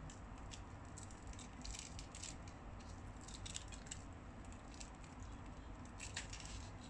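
Crisp, flaky fried scallion pancake being torn apart by hand: light crackling and rustling of the layers in several short bursts.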